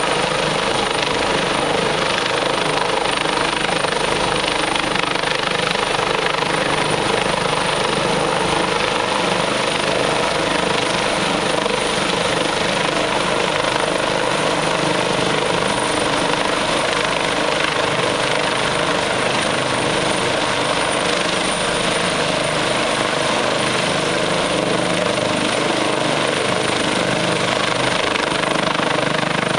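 A medium twin-turbine fire-rescue helicopter hovering overhead during a hoist rescue, with a person hanging below on the cable. Its rotor and turbine engines run steadily, with a thin high whine over the rotor noise.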